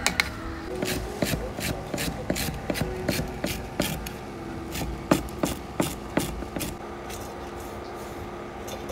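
Knife chopping on a wooden cutting board: regular strokes about three a second, pausing briefly midway and stopping about two-thirds of the way through.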